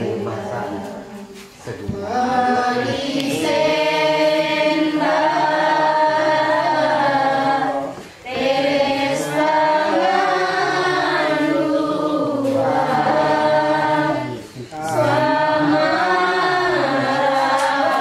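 A group of voices singing a Kaharingan worship hymn together in long, sustained phrases, with short breaks between phrases about every six seconds.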